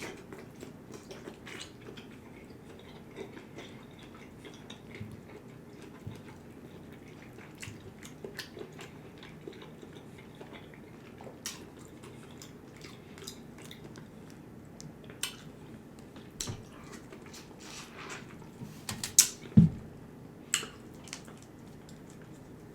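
Close-up eating sounds from a seafood boil of mussels, shrimp, corn and sausage: chewing, with scattered sharp clicks of shells and utensils. The clicks grow louder and closer together near the end, with one low thump about twenty seconds in.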